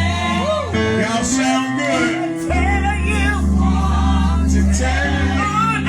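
Gospel worship music: voices singing over held keyboard chords and a steady bass.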